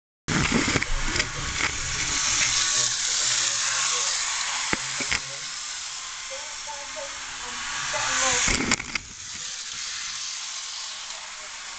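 Model electric trains running on sectional track: a steady rattling whirr of the wheels and motor with scattered clicks, swelling as a train passes close about eight seconds in and dropping off suddenly just after.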